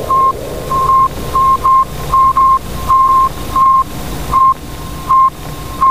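An electronic beep tone keyed on and off in short and longer beeps at an uneven rhythm, like Morse code, over a steady hiss and low rumble.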